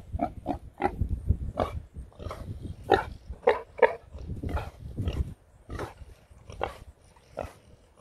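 A pig grunting: a run of short grunts, about two a second.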